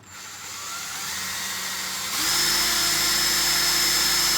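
Power drill running, speeding up over the first couple of seconds, then held at a steady speed.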